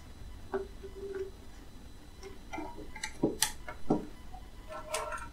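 Test leads being handled and a banana plug pushed into the terminal of an analogue milliammeter: a scatter of separate small clicks and knocks, the strongest a little after three seconds and at about four seconds.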